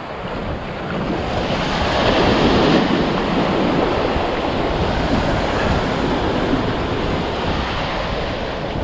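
Ocean surf breaking and washing up the sand close by, swelling loudest about two seconds in, with wind buffeting the microphone.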